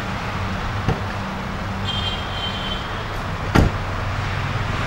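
Jeep Wrangler idling steadily, with a small click about a second in, a brief high beep near the middle, and a car door shut with a single thump about three and a half seconds in.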